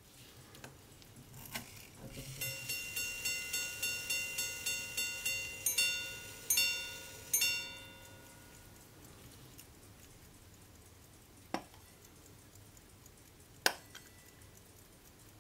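Antique British repeating pocket watch by Vulliamy striking the time on demand. A click sets it off, then about a dozen evenly spaced ringing hour blows, then three quick two-note quarter blows that ring away. Two sharp metal clicks come later as the watch case is opened.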